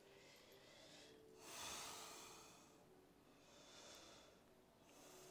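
Faint breathing of a woman flowing through a yoga vinyasa: one long breath about a second and a half in, then a shorter, softer one near four seconds.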